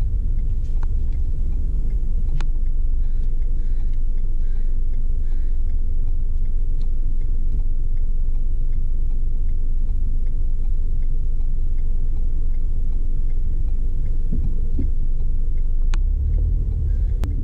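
Steady low rumble of a car driving, engine and road noise heard inside the cabin, with an isolated sharp click about two and a half seconds in and another near the end.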